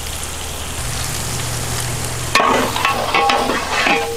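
Chopped onions, tomatoes and green chillies sizzling as they fry in ghee in a large metal pot. About two and a half seconds in, a ladle starts stirring, scraping and clinking against the pot.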